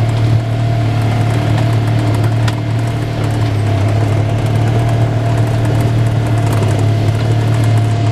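Side-by-side UTV engine running at a steady low trail speed, a constant drone that does not rise or fall, with a few light clicks and rattles as the machine rolls over the rough dirt trail.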